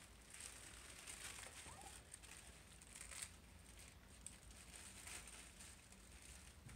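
Near silence: faint room tone with a few soft, scattered scuffs and rustles from Havanese puppies moving about on a tile floor.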